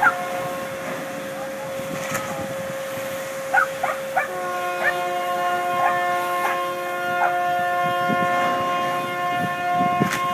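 Several ship horns sounding together in one long held chord, saluting a ship launch, with more horns joining about four seconds in. Short high chirps and a few sharp clicks come over the top.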